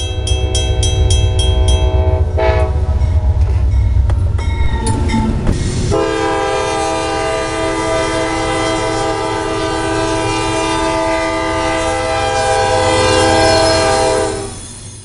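Locomotive air horn sounding over the low rumble of a passing train. There is one blast in the first couple of seconds, then a long steady blast from about six seconds in that cuts off suddenly near the end.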